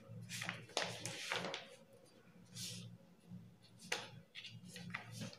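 Pencil tapping and scratching on pattern paper as a dotted line is marked, with the paper rustling under the hands: a string of faint short taps and strokes, the sharpest about four seconds in.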